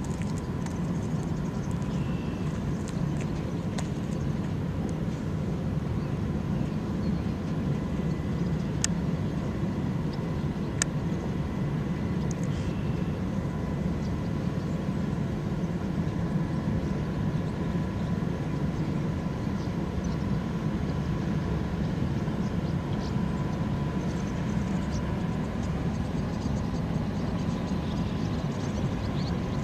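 Steady low rumble of a Great Lakes freighter's machinery as the ship passes close, with a faint steady whine over it. Two sharp clicks, about 9 and 11 seconds in.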